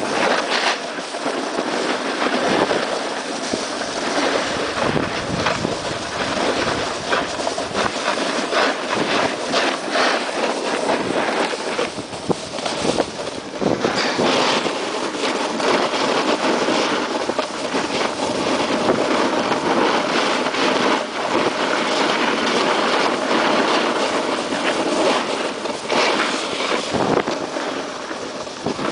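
Snowboard sliding and carving down groomed snow: a steady, loud scraping hiss with frequent short rattles as the board chatters over the surface.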